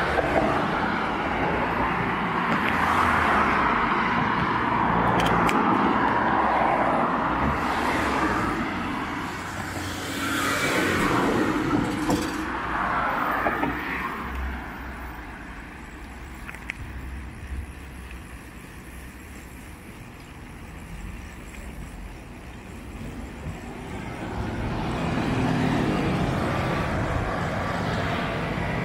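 Road traffic: cars passing one after another, with swells of tyre and engine noise in the first several seconds, again around ten to thirteen seconds in, and near the end, and quieter road noise between.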